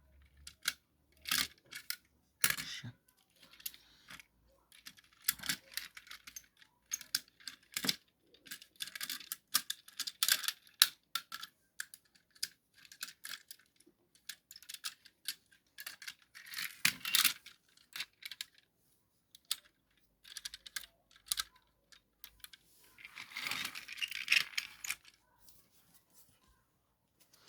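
Irregular small clicks, clacks and rattles of a toy tram being handled, with a longer rustling stretch near the end.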